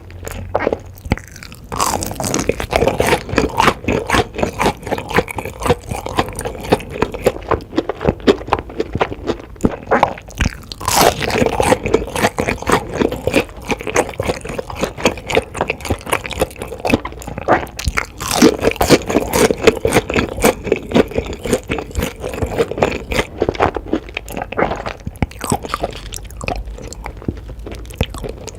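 A person chewing and crunching food up close to the microphone, with many quick crunches and clicks in a continuous stream.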